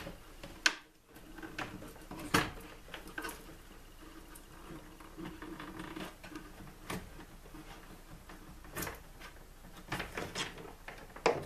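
Hands handling wiring inside a WFCO 8955 power center: scattered clicks, taps and rustles of wire against the plastic housing and terminals, the sharpest clicks about two seconds in and near the end.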